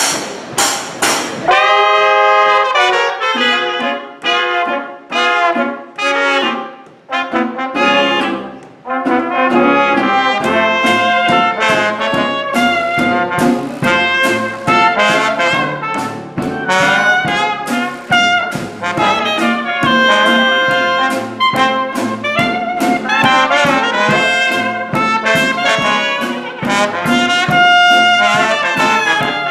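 Traditional New Orleans jazz band playing live: cornet, clarinet, trombone, sousaphone, bass drum and washboard. There are a couple of short breaks in the first eight seconds before the full band plays steadily together.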